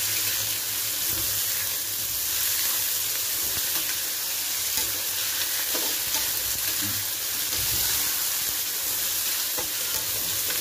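Sliced onion, green capsicum and carrot sizzling steadily in very hot oil in a wok as they are stir-fried, with a few faint knocks of the stirring utensil against the pan. The strong sizzle is the sign of how hot the oil is.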